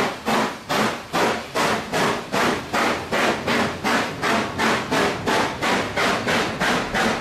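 Steam exhaust beats of the AC16 class steam locomotive 221A, which has a short-stack exhaust, at about two sharp chuffs a second as it pulls its train away, over the rumble of carriages rolling past.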